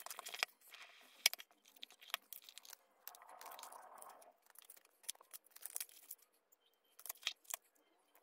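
Faint crackles, clicks and rustles of a smartphone's cardboard retail box and its plastic wrap being handled and unpacked, with a short soft sliding scrape about three seconds in as a paper envelope is drawn out of the cardboard tray.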